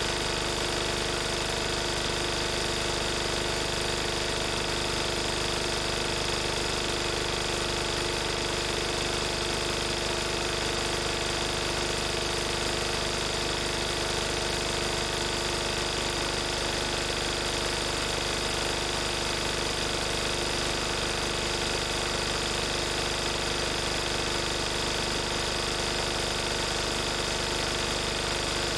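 1994 Lister Petter AD1 single-cylinder, air-cooled diesel generator running steadily at its 3000 rpm governed speed.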